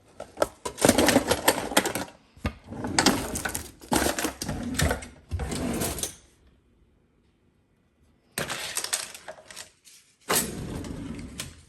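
LEGO pieces and plastic packaging clattering and rattling as a box of parts is rummaged through, in bursts of a second or two, with about two seconds of silence around the middle.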